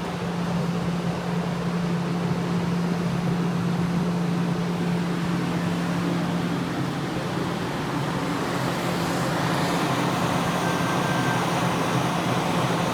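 E1000 series electric train passing: a steady hum over a continuous rolling rumble, turning brighter and hissier about nine seconds in.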